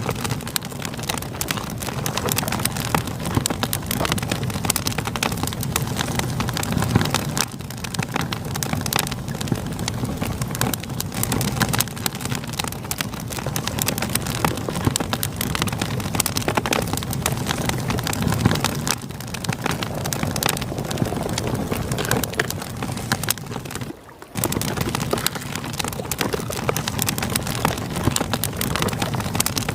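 Campfire crackling with many small snaps and pops over a steady rush of flowing river water. The sound dips out for a moment about four-fifths of the way through.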